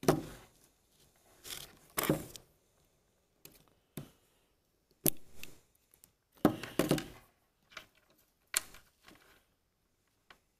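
Handling noise: a smartphone and a USB-C charging cable being picked up, fumbled and knocked against a wooden tabletop while the plug is fitted into the phone's port, a string of irregular clicks, knocks and rustles.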